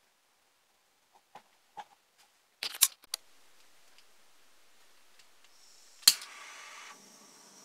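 A few light clicks and a cluster of sharp knocks from handling the cast resin mold. Then a single loud click about six seconds in, followed by a hiss: a torch being lit to pass a flame over the fresh resin surface to pop bubbles.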